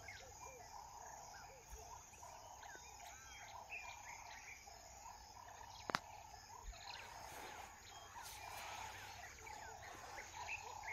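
Faint wildlife ambience: many short bird chirps over a steady chorus of small insect-like calls. A single sharp click about six seconds in.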